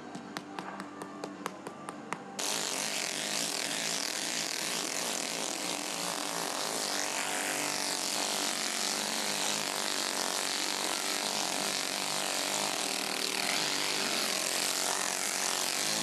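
Music with light rhythmic tapping, cut off about two and a half seconds in by a loud, steady rushing machine noise that holds evenly to the end.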